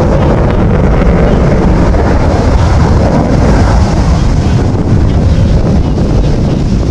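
Eurofighter Typhoon's twin Eurojet EJ200 turbofans, a loud, steady jet rumble as the fighter flies its display pass.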